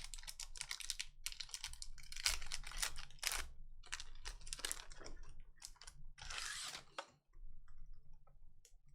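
Hockey trading cards and their pack being handled: a quick run of clicks and rustles as cards slide over each other and are set down, with one longer rustle about six seconds in.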